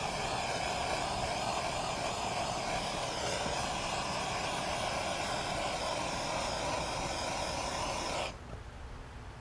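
Torch flame burning with a steady rushing hiss while heat-shrink tubing is shrunk over a wire splice; it cuts off suddenly about eight seconds in.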